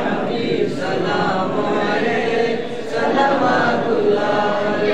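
Group of male voices, men and boys together, chanting a devotional recitation in unison.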